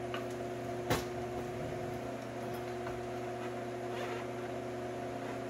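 A steady hum runs throughout, with a single sharp click about a second in and a faint scrape near the end, as a screwdriver works the door-panel screws.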